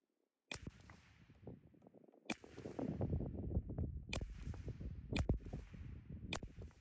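Five shots from a Ruger 10/22 .22 LR rifle, about one to two seconds apart, each a sharp crack with a short echo. A low rumble of wind on the microphone runs under the shots.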